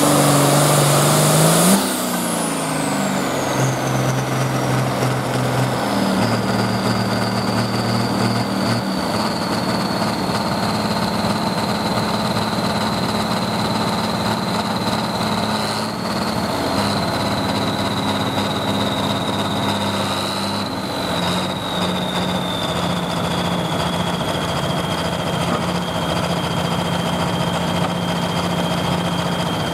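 John Deere 4255 pulling tractor's 466-cubic-inch diesel at full throttle at the end of its pull; the throttle is cut about two seconds in, and the engine drops to an idle. A high turbocharger whine then falls steadily in pitch as the turbo spools down over the diesel's idle.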